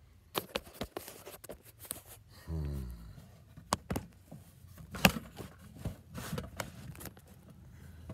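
Scattered clicks and knocks of handling and movement close to the microphone, with a short low sound rising in pitch about two and a half seconds in.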